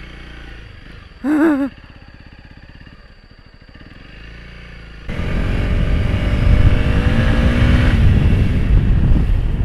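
Motorcycle engine running quietly at low throttle. About five seconds in, the throttle opens and the bike accelerates, the engine note rising, with wind rushing over the microphone. A short wavering pitched sound comes about a second in.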